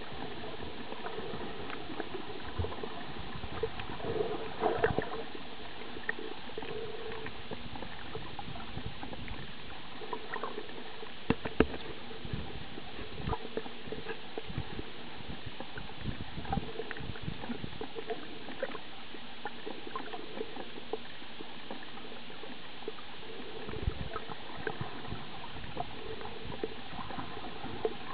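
Underwater sound heard through a waterproof camera: a steady water hiss with scattered small clicks and knocks, and a few louder thumps about 5 and 11 seconds in.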